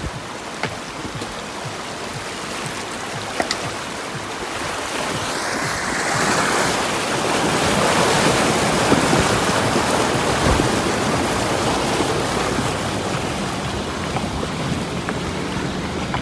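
River water rushing and splashing against an off-road vehicle as it fords a rocky river. The splashing builds about five seconds in, is loudest around the middle, then eases off. A few faint knocks come in the first few seconds.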